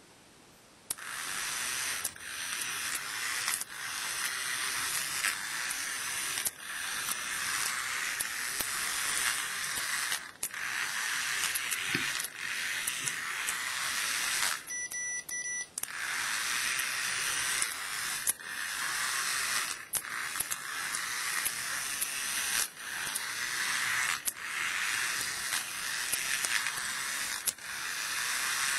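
Small DC gear motors of a microcontroller robot car running with a steady whirring hiss, broken by short pauses every second or two as the car stops and changes direction. About halfway the motors stop for about a second, leaving only a thin steady high tone.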